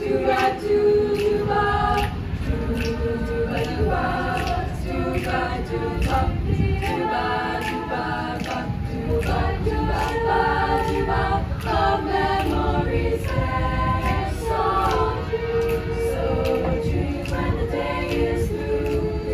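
Choir singing a cappella in several parts, with sharp clicks keeping a steady beat.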